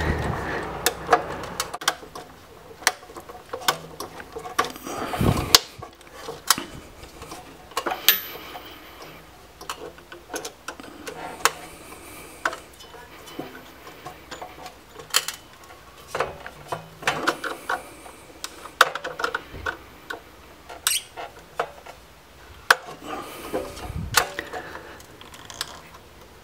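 Irregular clicks and small metallic taps of a screwdriver turning the terminal screws of a hot tub GFCI breaker as wires are seated and tightened. Two duller knocks come about five seconds in and near the end.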